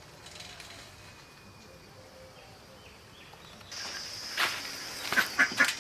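Quiet rural ambience with a few faint bird chirps; about two-thirds of the way in, a steady high insect buzz sets in, with a few sharp clicks and rattles from the bicycle being stopped and handled near the end.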